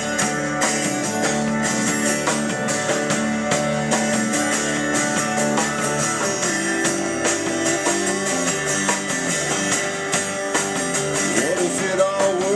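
Instrumental passage of a rock song with strummed guitar.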